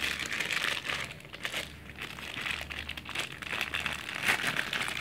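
Thin clear plastic bag crinkling in the hands, in irregular bursts, as a direct box is worked out of it.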